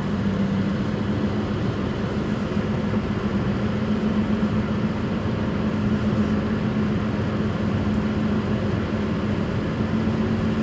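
A 2005 Suzuki Swift at road speed, with worn wheel bearings roaring steadily under a constant low drone. This is the noise of bad wheel bearings, which the owner locates at the front right and rear right.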